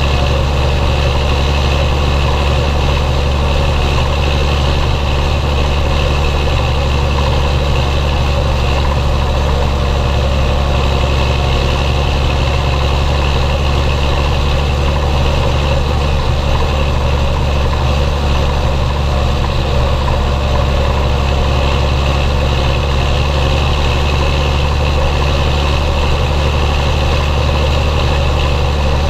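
Belarus 1221.3 tractor's six-cylinder diesel engine running steadily with a deep, even drone and no change in speed.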